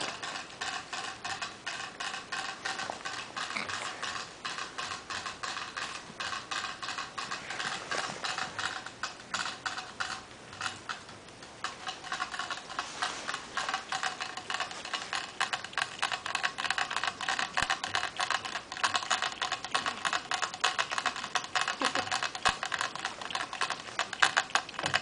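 Shih Tzu puppy licking the metal spout of a gate-mounted water bottle: a fast, unbroken run of small clicks as it drinks, easing briefly about ten seconds in.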